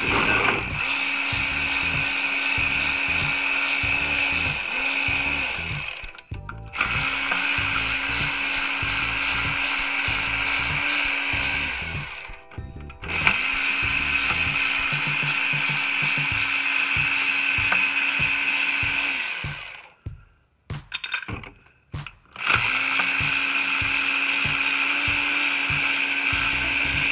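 Matco quarter-inch power ratchet running in four long runs of several seconds each with short breaks between, spinning out the transmission pan bolts.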